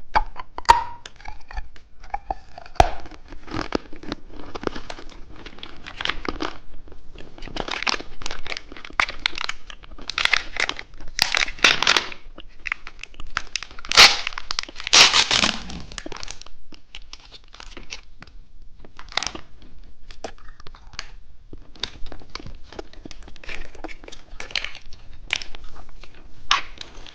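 Candy wrappers crinkling and being torn open in dense, irregular rustles, loudest around the middle.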